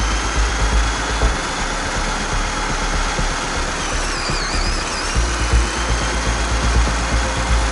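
LEGO Technic model car's BuWizz electric drive motors and gear train whining as it drives in low gear. The whine dips and rises again about four to five seconds in as the car slows and speeds up, over a steady low rumble.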